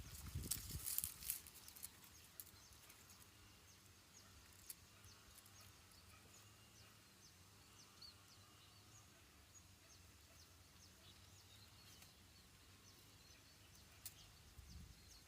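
Near silence: faint rustling and soft knocks in the first second or so, then faint, short, high chirps repeating every fraction of a second over quiet outdoor background.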